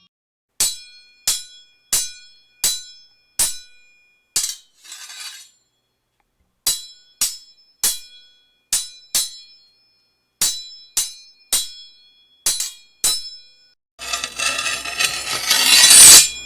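Steel sword blades clashing: three runs of sharp metallic clangs, each ringing briefly, with strikes a little under a second apart and a short swish after the first run. Near the end comes a longer, louder grating metal sound that builds for about two seconds and is the loudest thing heard.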